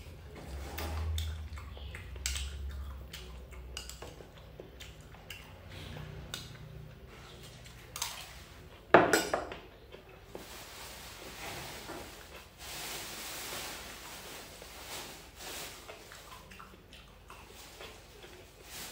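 Metal spoon clinking and scraping against a small porcelain bowl in scattered small clicks, with one sharp knock about nine seconds in that is the loudest sound.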